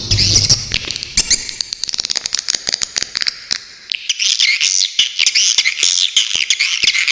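Swiftlets twittering: a fast string of sharp clicking chirps that thickens into dense, overlapping twitters about four seconds in. A low hum sits under the first second or so.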